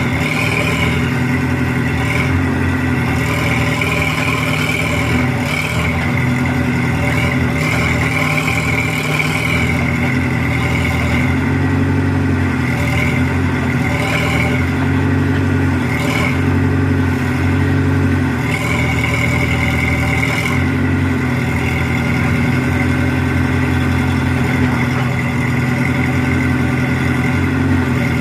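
Heavy construction machine's engine running steadily, with a higher whine above it that wavers slightly every second or two.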